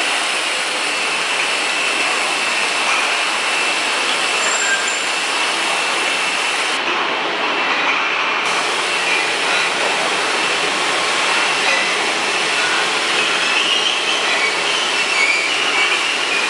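Glass bottle filling and capping line running, conveyor and machinery making a loud, steady mechanical noise with a faint high whine running through it.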